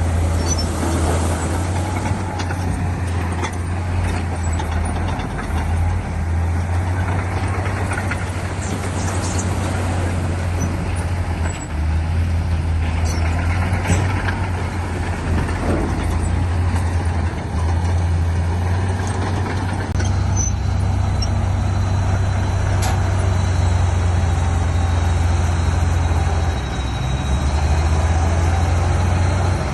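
Heavy diesel engine of earthmoving machinery running steadily under load, its note shifting a few times, with a few short knocks and clanks.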